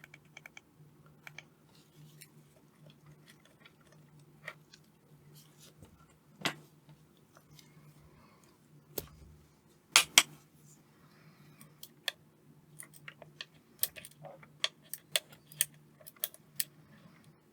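Small metal clicks and clinks of nuts being undone and lifted off a relay/fuse board with a hand tool. The clicks are scattered, with a sharp pair about ten seconds in and a run of quick clicks near the end.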